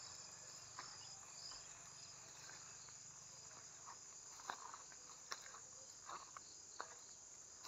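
Faint, steady high-pitched insect chorus in the background, with a few scattered faint clicks.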